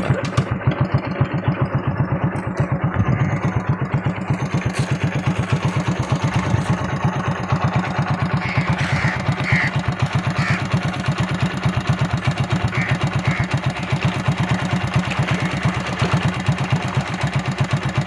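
An engine running steadily, with an even, rapid thudding beat.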